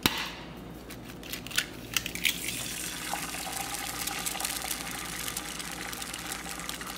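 An egg being cracked and fried in a frying pan: a sharp knock at the start and a few crisp cracks of the shell, then a steady sizzle with small crackles as the egg fries in the hot pan.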